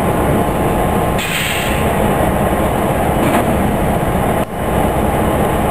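Steady low rumbling of diesel locomotives idling in a locomotive shop yard, with a brief hiss about a second in.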